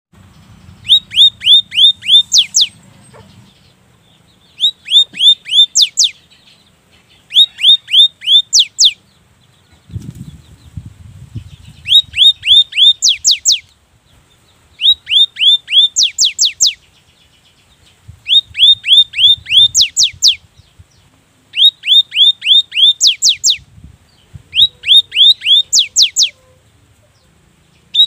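Cinereous tit (gelatik batu) singing loudly in repeated bursts, each a rapid string of six to eight high, sharp, falling whistled notes, with a pause of a second or two between bursts.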